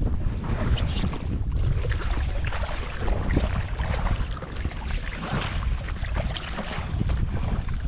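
Wind buffeting the microphone over small splashes and drips of water as a fishing net is pulled in by hand over the side of a small boat.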